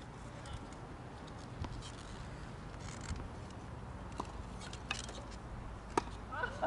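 Tennis rally: scattered faint knocks of the ball on racquets and court, with a sharp racquet strike on the ball about six seconds in, followed by a brief shout near the end.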